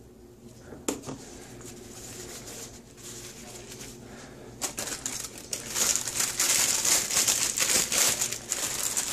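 Paper wrapping and a plastic food bag crinkling as a block of fresh cheese is wrapped up and worked back into its bag. The crinkling is light at first, with one sharp click about a second in, and turns loud and dense about five seconds in.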